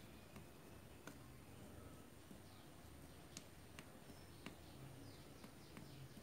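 Near silence: faint background hiss with a few soft, scattered clicks.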